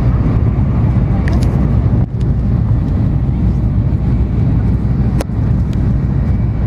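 Cabin running noise of an N700 series Shinkansen under way: a steady, loud low rumble, with a few brief clicks scattered through it.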